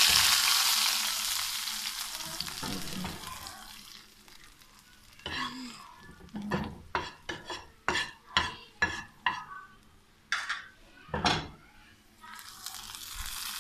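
Browned onions and their hot frying oil hitting the simmering nihari gravy with a loud sizzle that fades away over the first few seconds. Then a run of short scrapes and clinks, a spoon scraping against a pan.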